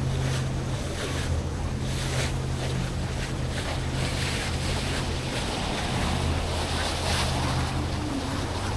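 Wind on the microphone and lake waves, with a steady low hum underneath.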